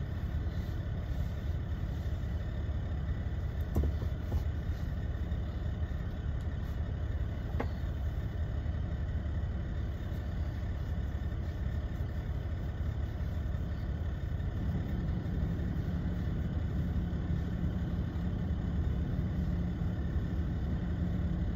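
Steady low engine rumble of an idling semi truck, heard from inside the sleeper cab. A steady hum joins about two-thirds of the way in, and there are a couple of faint clicks.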